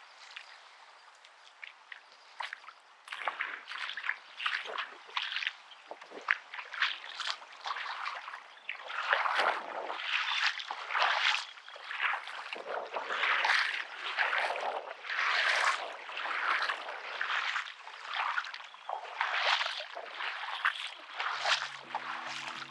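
Shallow seawater sloshing and trickling at the shoreline in irregular splashes, getting louder partway through.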